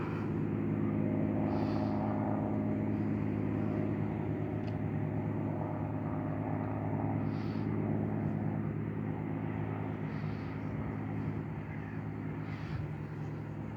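Piston engine of a small propeller plane droning steadily as it flies over, fading slightly near the end.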